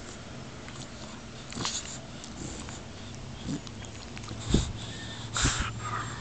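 Dogue de Bordeaux puppy breathing and licking right at the microphone, with a few short noisy bursts of breath, the loudest about four and a half seconds in and another a second later.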